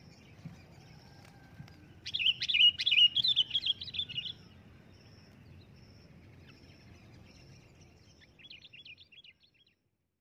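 Sooty-headed bulbul calling: a loud burst of quick chirping notes starting about two seconds in and lasting about two seconds, then a shorter, quieter phrase near the end. A faint, high, short note repeats steadily underneath, and the sound cuts off just before the end.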